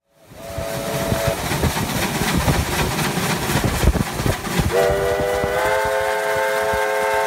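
Steam tank locomotive No. 3016 working past with its exhaust beating. It gives a short whistle toot about half a second in, then a long whistle from near the end that steps up in pitch after about a second.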